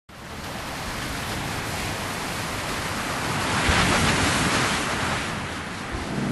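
Heavy ocean surf breaking on rocks and a beach, a steady wash with one wave crashing loudest about halfway through.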